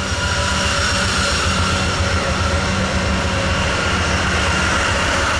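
CN diesel freight locomotives passing close by under power: a steady low engine rumble with a steady high whine over it.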